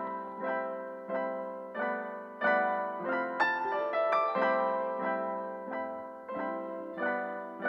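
Background music: gentle piano, chords struck every second or so and left to ring.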